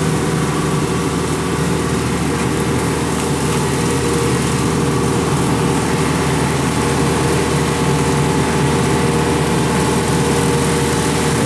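Kubota rice combine harvester's diesel engine running steadily as the machine drives slowly forward.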